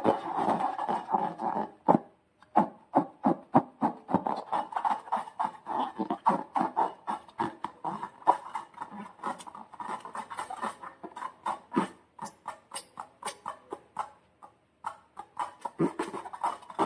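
Sticky slime being squeezed and pulled by hand: a stream of short wet clicks and small pops, several a second. It is denser and more continuous at the start and again near the end.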